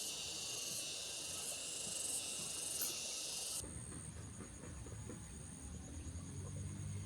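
A dense, steady, high-pitched chorus of insects that cuts off suddenly about halfway through. After it only a fainter steady high whine and a low rumble remain.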